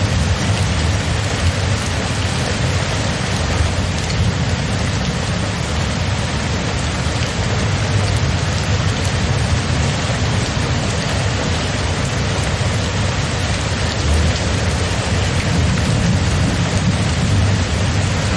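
Steady rainstorm: rain falling evenly with a constant low rumble underneath and no distinct thunderclaps.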